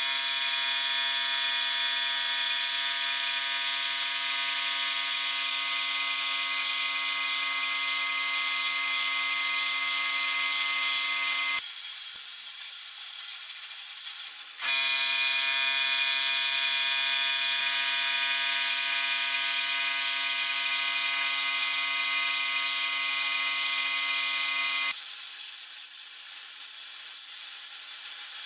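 Sandblaster running: a loud, steady hiss of air and abrasive over a steady motor hum. It stops for about three seconds around twelve seconds in, then starts again, and it changes and drops slightly near the end.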